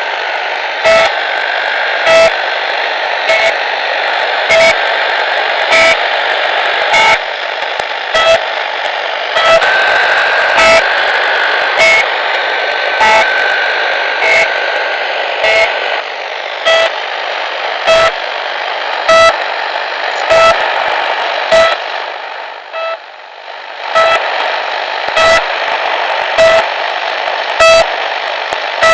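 Shortwave radio receiving The Pip marker station on 5448 kHz: short beeps about every 1.2 seconds over steady static hiss. A faint whistling tone rides on the signal for several seconds in the middle, and the signal fades briefly about three quarters of the way through.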